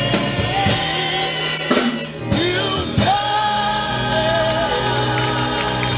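Gospel choir singing live with keyboard and drum accompaniment; a long sung note is held about halfway through.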